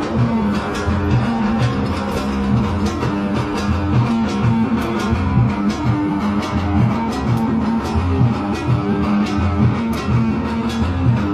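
Oud playing, a run of quick plucked notes over low notes in a steady rhythm.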